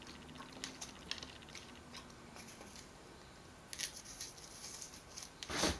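Fingers peeling a tangerine and picking the white pith off its segments: faint small clicks and crackles, a short cluster about four seconds in, and a louder rustle just before the end.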